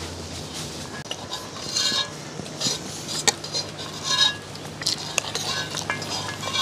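A spoon scraping and clinking against the inside of a metal cooking pot as leftover rice is dug out: a string of short scrapes, with one sharp clink a little over three seconds in.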